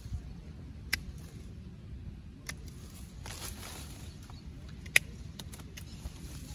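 Leafy branches rustling as they are gripped and cut back. A few sharp snaps come about one, two and a half and five seconds in, the one at five the loudest, with fainter clicks just after it.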